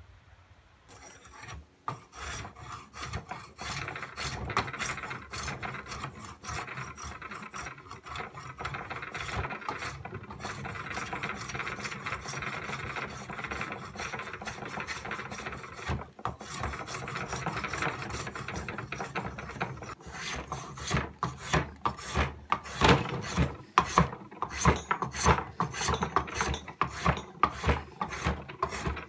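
Hand tool scraping along a hardwood mallet handle held in a vise: a steady run of rasping strokes starts about two seconds in. In the last third it gives way to louder, separate strokes in quick succession.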